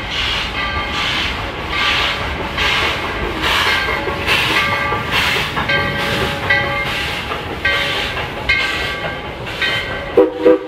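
Dollywood Express steam locomotive No. 192, a coal-fired narrow-gauge 2-8-2, working past with an even beat of exhaust chuffs, a little over one a second, as its passenger cars follow. Two sharp knocks come near the end.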